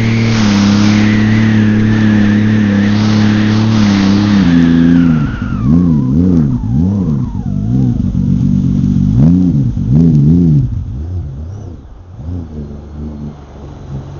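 Watercraft engine running hard at a steady pitch, with a high whine that falls away as it eases off about four seconds in. Next comes a run of quick rises and falls in engine pitch, about one a second. Near the end it drops to a lower, quieter run.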